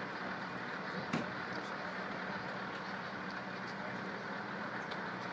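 Steady running of the large front loader's diesel engine as it tows the dead Big Boy steam locomotive along the track, with one sharp click about a second in.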